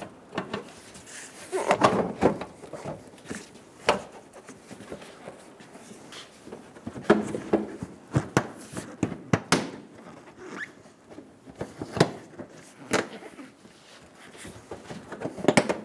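Plastic front bumper cover of a Toyota Camry being hooked around the fender and pressed into place by hand: irregular clicks and knocks of plastic, with some rustling handling noise.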